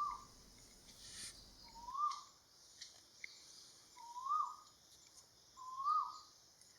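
Blue-winged pitta calling: a short whistled note that rises and then drops, repeated four times at roughly two-second intervals.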